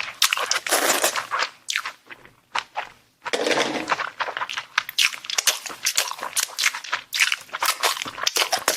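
Close-miked eating sounds: a person chewing and crunching food, with many crisp crackles and wet smacks. There are two longer crunchy stretches, one near the start and one about three seconds in.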